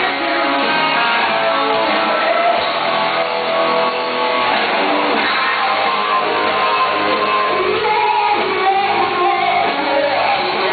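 Live rock band playing loud and steady, with electric guitar to the fore and singing over it.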